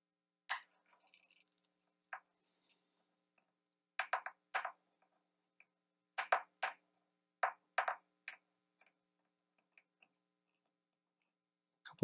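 Handheld coax cable stripper clicking as it is clamped onto and turned around a coax cable to strip the end: about ten light clicks, some in quick groups of two or three, with a faint rustle in the first few seconds.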